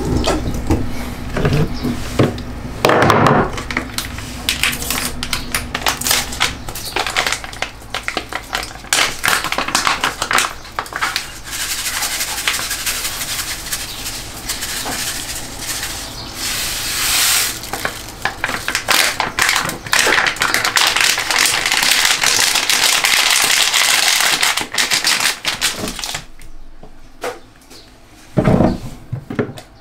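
Oxygen-bleach powder shaken from a plastic pouch onto leather boots soaking in a basin of water: a crackling patter of falling grains, becoming a steady hiss of pouring through much of the second half.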